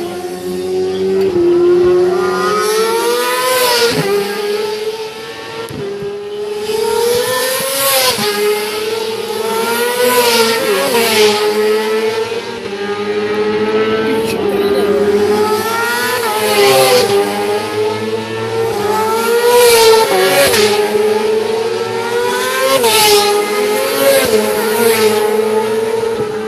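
Racing motorcycles accelerating past one after another on a closed road course, each engine's pitch climbing and dropping as it revs up through gear changes. A new pass comes every few seconds over a steady background engine drone.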